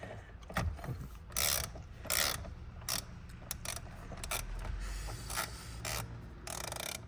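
A hand ratchet wrench clicking in short, irregular bursts as the steering wheel's center bolt is backed out.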